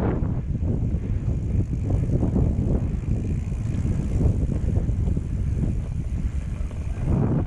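Wind buffeting a GoPro's microphone as it rides along on a moving bicycle, a loud, uneven low rumble.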